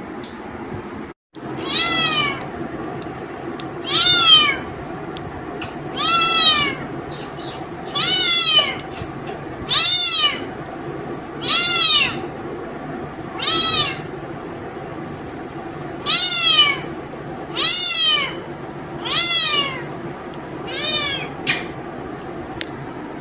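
Tabby kitten meowing over and over, about a dozen meows one every one and a half to two seconds, each rising then falling in pitch.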